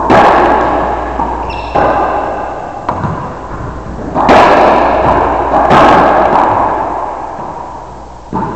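Racquetball rally: the ball cracking off racquets and the walls about half a dozen times, each hit loud and sharp with a long booming echo in the enclosed court.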